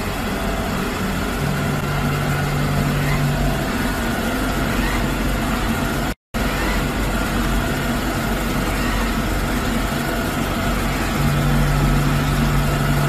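Samsung robot vacuum cleaner running, a loud steady whir of its suction motor and brushes. A low steady hum joins it twice, and the sound cuts out for a moment about halfway through.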